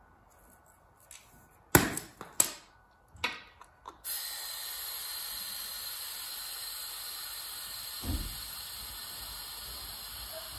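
A few sharp clicks and knocks of hand tools on the wheel, then about four seconds in a steady hiss starts and holds: air escaping through the valve stem as the zero-turn mower's small front dolly-wheel tire is let down.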